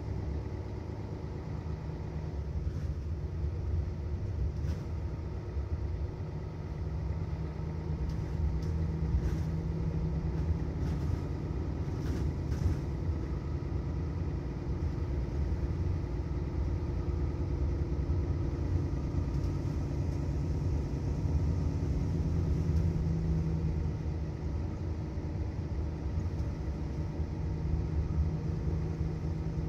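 Mercedes-Benz Citaro bus diesel engine running with a steady deep rumble, its note rising a little partway through. A few light clicks come about ten seconds in.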